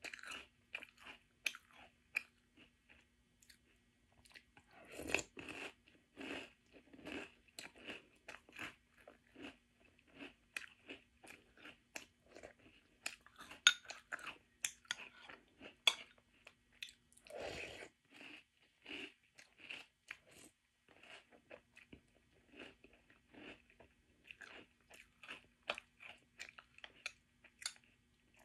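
Close-up crunching and chewing of crisp, sweetened corn cereal (French Toast Crunch), eaten a spoonful at a time: a dense, irregular run of sharp crunches.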